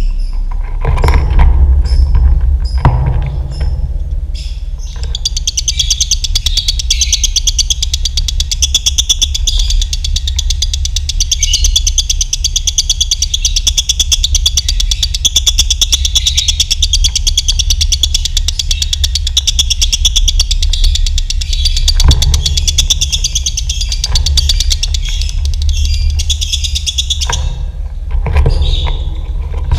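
Lovebird singing a long, rapid, unbroken high-pitched chattering trill (ngekek) in the double-toned 'dobelan' style. It starts about five seconds in and runs for over twenty seconds, with scattered single chirps before and after, over a steady low hum.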